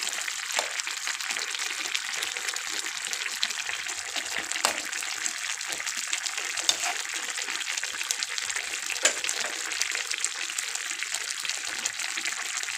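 A pot of thin curry simmering on the stove: a steady hiss of bubbling and sizzling with many small crackles, and a few sharper pops or clicks.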